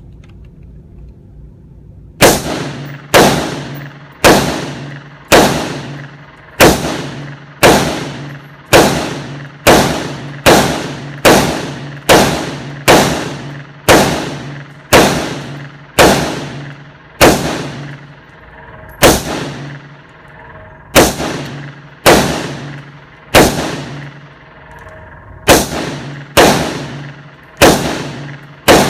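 Gunshots fired one at a time at a steady pace of about one a second, beginning about two seconds in, with two short pauses near the end.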